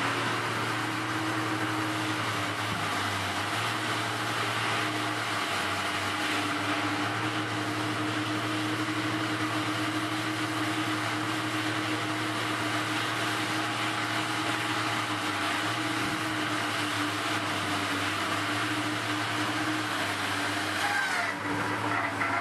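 Diesel engine of a trailer-mounted Caterpillar log loader running steadily while it handles logs. Near the end the circular slasher saw cuts into a log.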